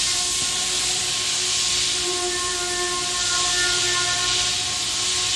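Steady factory background noise: an even hiss with a faint hum at several steady pitches, from the ventilation and machinery of the workshop floor.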